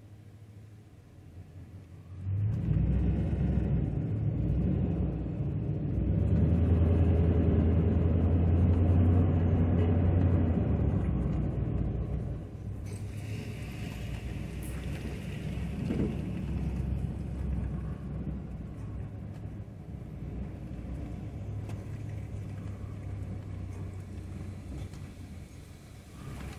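Chevrolet Silverado pickup's engine and tyre rumble heard from inside the cab while driving slowly. It swells about two seconds in, is loudest a few seconds later, then settles to a lower steady drone.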